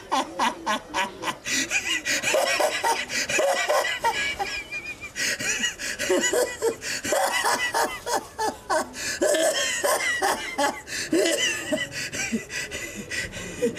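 A man laughing hard, in a long unbroken run of short cackling bursts.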